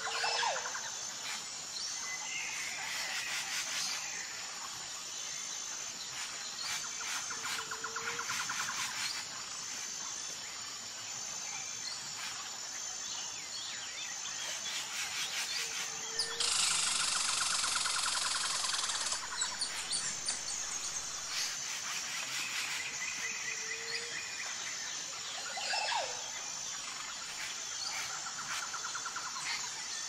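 Nature soundscape of assorted birds chirping and whistling over a steady, high, pulsing insect trill. A louder hissing buzz lasts about two and a half seconds past the middle.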